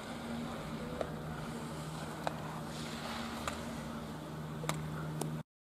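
Giant slalom skis carving on hard-packed snow: a steady hiss broken by sharp knocks about once a second, over a steady low hum. The sound cuts off abruptly near the end.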